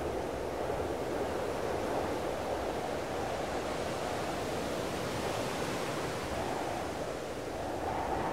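Sea surf breaking on a rocky shore, mixed with wind: a steady rushing noise that ebbs and swells slightly.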